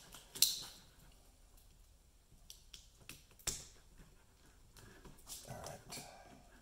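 A knife cutting through silicone pipe wrap and aluminum tape wrapped around headlight ballast cables: a few sharp clicks, the loudest about half a second in and another about three and a half seconds in, then scraping and crinkling near the end.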